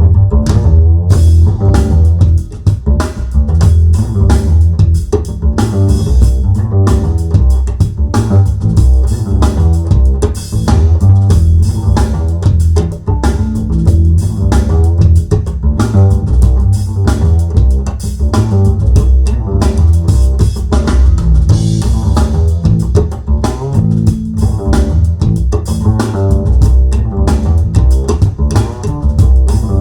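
Recorded music played back through Kharma Elegance dB11-S hi-fi loudspeakers: a strong, steady bass line with plucked guitar and drum kit, loud and rhythmic.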